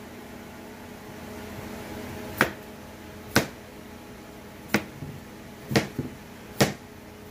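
Kitchen knife chopping through a zucchini and knocking on a plastic cutting board: five sharp chops, about one a second, starting a couple of seconds in.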